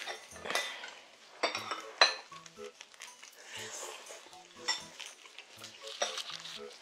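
Chopsticks and spoons clinking against bowls and plates at a meal table: several sharp clinks, the loudest about two seconds in.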